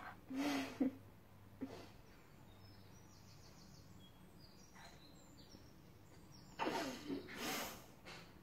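A few soft breathy puffs from a person, near the start and again near the end, with faint high bird chirps in between.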